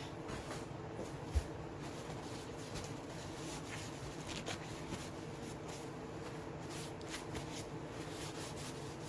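Faint scattered clicks and scrapes of hands handling engine parts during piston installation, with a single dull thump about a second and a half in, over a low steady hum.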